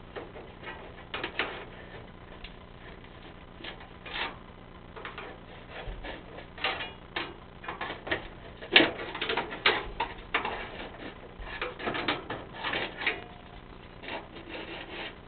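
Irregular clicking, scraping and rattling as a furnace vent part, pushed up firmly into the flue, is worked loose and pulled back down. The loudest knocks come in the middle and near the end, over a low steady hum.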